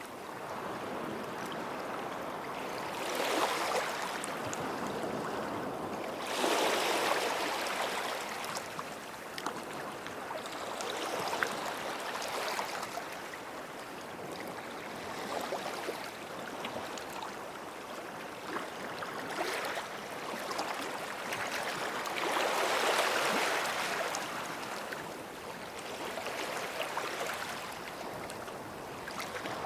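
Small waves lapping and washing on a sandy shore, a gentle rush swelling every few seconds and fading back to a soft hiss and trickle.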